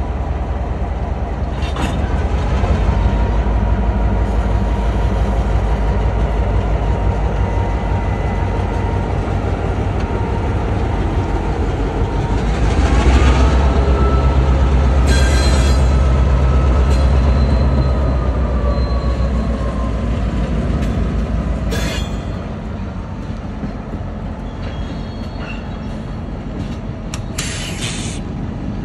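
Buffalo & Pittsburgh Railroad diesel locomotive 2003 rolling slowly past at close range, its engine running with a low steady rumble that is loudest around the middle. Steel wheels squeal in long drawn tones against the rail, with a few sharp metallic clanks; the sound drops off somewhat near the end as the locomotive moves away.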